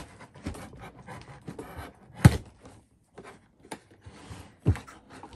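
Plastic zip ties being sawn at with a dull knife against a cardboard figure insert: irregular rubbing and scraping, with two sharp knocks, one a little over two seconds in and one near the end.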